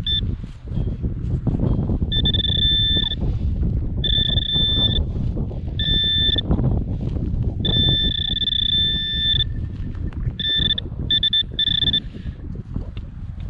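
Metal detector beeping a steady high tone in on-off runs of about half a second to nearly two seconds, as it picks up a buried metal target, over wind rumble on the microphone.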